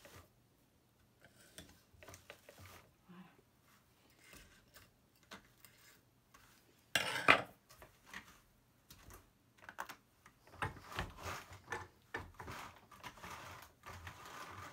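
A wool batt being worked loose and peeled off the large drum of a drum carder by hand. Scraping and rustling of fibre dragging against the carding cloth, with scattered clicks and one loud knock about seven seconds in. The scraping gets denser from about ten seconds on.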